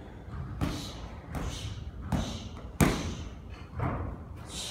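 Gloved punches and kicks landing on hand-held striking pads (focus mitts and a kick shield): a run of about six sharp thuds, one every second or less, the one just under three seconds in the loudest.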